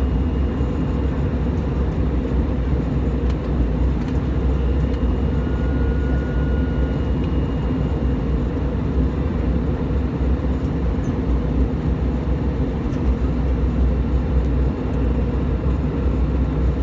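Airliner cabin noise in flight: a steady, low, unbroken drone of engines and rushing air.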